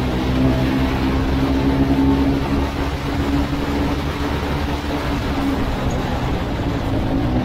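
Motorcycle engine running at cruising speed under heavy wind and road noise. The engine note is steady, sinks under the rushing wind through the middle, and climbs in pitch near the end as the bike accelerates.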